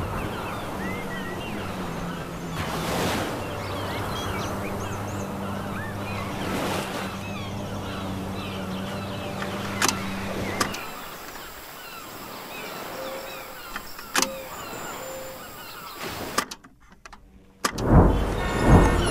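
Layered ambience: a steady low hum with bird chirps over it for the first half. It thins to a quieter background with a few short tones, drops out briefly, and then a loud swelling whoosh rises near the end.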